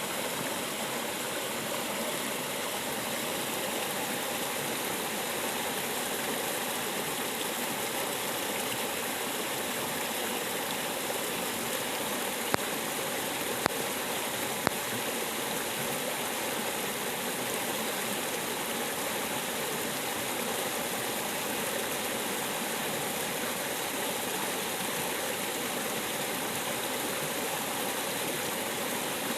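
River water flowing in a steady, unbroken rush. Three short sharp clicks come close together a little before the middle.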